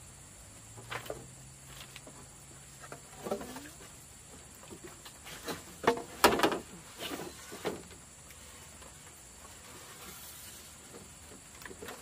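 Scattered knocks and clatters, irregular and a second or so apart, the loudest cluster about halfway through.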